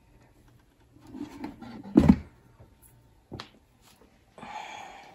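Objects being handled and set down on a hard surface: some rustling, a heavy thump about two seconds in, a sharp click a second later, then a short rustle near the end.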